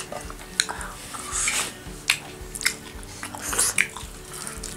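Eating by hand from brass plates: fingers pressing and scraping finger-millet dhido and sukuti against the metal, with short clicks and light clinks of metal scattered throughout.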